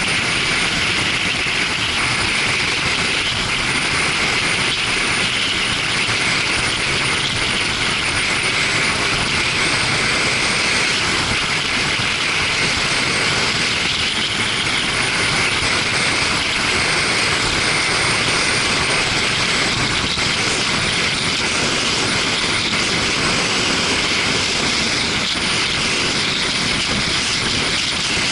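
Motorcycle riding at a steady speed: a constant rush of wind and road noise over the engine, with no changes in pace.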